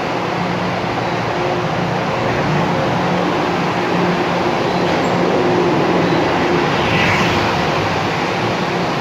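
Long Island Rail Road M3 electric multiple-unit train running past along the platform, a steady rumble of the cars on the rails that swells a little around the middle.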